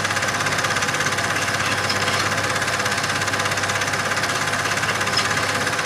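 Super 8 cine projector running, a steady mechanical clatter with a rapid even rhythm and a constant hum that never rises or falls.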